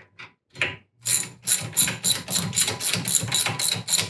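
Socket ratchet wrench clicking steadily, about four clicks a second, as a fastener is turned. A few separate clicks come just before the run starts.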